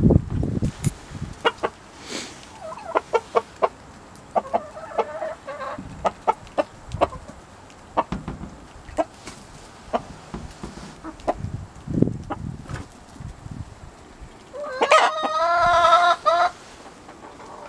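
Free-range hens and a rooster clucking while they feed, with short calls and sharp clicks scattered throughout. About fifteen seconds in, a rooster crows once, a loud wavering call that lasts under two seconds.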